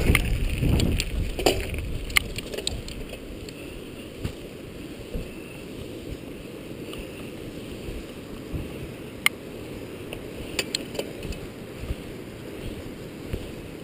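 Bicycle rolling along pavement: a steady rumble of tyres and wind, louder for the first second or two, with scattered sharp clicks and rattles from the bike.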